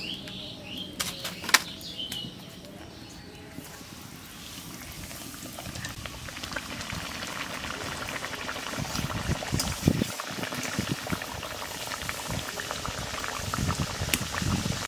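Hot oil sizzling and crackling in a kadai as mung dal kachoris deep-fry. The sizzle is softer at first, with a couple of sharp clicks, and grows louder and denser from about four seconds in.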